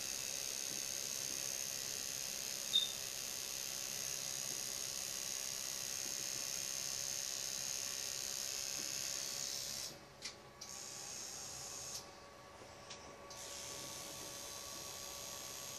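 Permanent-makeup tattoo machine running steadily while eyeliner is tattooed into the eyelid: a thin, high motor whine over a hiss. It cuts out briefly twice about two-thirds of the way through. A single short click comes about three seconds in.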